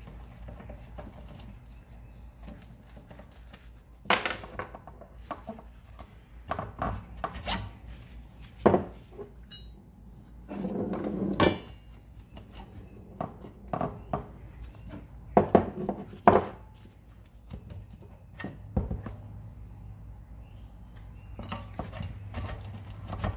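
Metal clinks, knocks and scrapes of a rusty steel mower blade adapter and pulley being worked onto and off an engine crankshaft and set down on a bench, irregular and scattered, with a longer scraping stretch near the middle.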